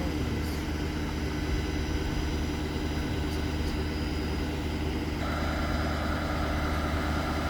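Heavy engine of the tree crew's equipment idling steadily with a low, even hum; about five seconds in a higher-pitched hum joins in.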